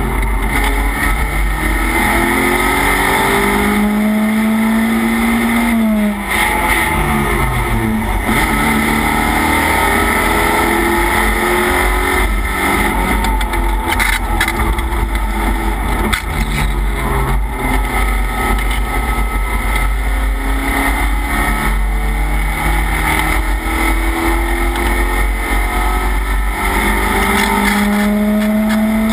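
Race car engine heard from inside the cockpit, pulling hard with its pitch climbing. About six seconds in the revs drop steeply, then climb again, over heavy wind and road noise.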